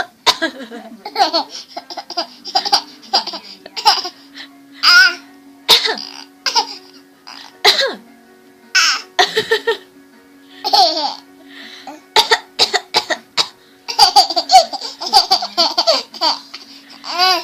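A person coughing again and again, with laughter between and after the coughs and a long stretch of laughing near the end. Background music with a held low note plays underneath.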